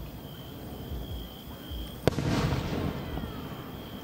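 An aerial firework shell bursts in one sharp boom about two seconds in, trailing off over about a second.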